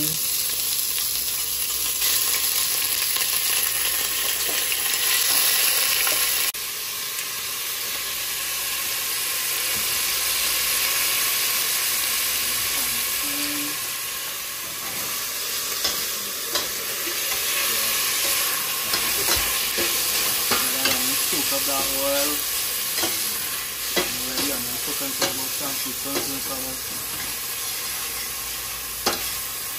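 Chopped onion sizzling in hot coconut oil in a stainless steel pot. The sizzle drops abruptly about six seconds in. From about halfway, the stirring spoon clicks and scrapes against the pot.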